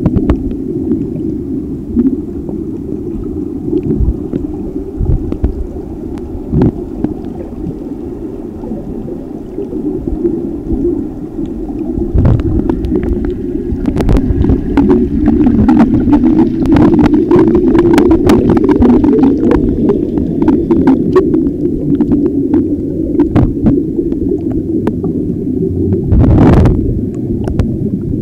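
Sound through a submerged camera: a steady muffled underwater rumble of moving water and air bubbles, with scattered clicks and taps against the housing and a brief louder rush of bubbles near the end.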